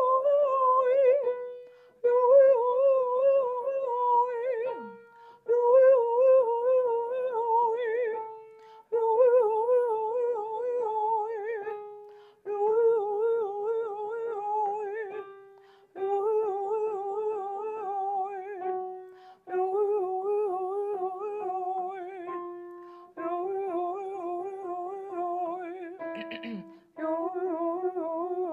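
A woman sings a vocal warm-up exercise on an open vowel, accompanied on an upright piano. The exercise is a quick run of notes up and down, repeated about eight times, each repetition a step lower in pitch.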